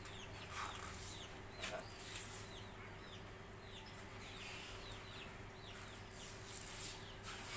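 Faint, repeated short falling chirps of small birds, about two a second, with a couple of soft knocks in the first two seconds.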